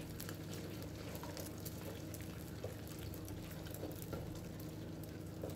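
Beaten eggs frying in shallow oil in a non-stick wok: a faint sizzle with scattered small crackles as a wooden spatula stirs and scrapes them, over a steady low hum.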